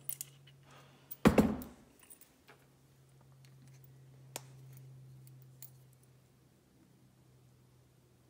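Small metal clicks and clinks as an aftermarket short-throw shifter is handled and a bolt is backed out of its body by hand, with one louder knock a little over a second in as the shifter is set down on the bench. A low steady hum runs underneath.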